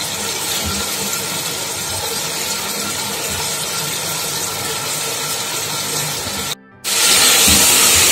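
Tomato-and-spice masala sizzling in hot oil in a metal pot as raw chicken drumsticks are laid in, with a few soft thuds. The sound cuts out for a moment near the end, then comes back louder as the chicken is stirred with a wooden spoon.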